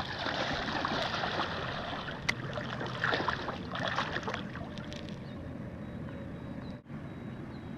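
Shallow water splashing and sloshing as a large northern pike is held in it by hand for release. The splashing is busiest in the first four seconds or so, then eases to a quieter wash.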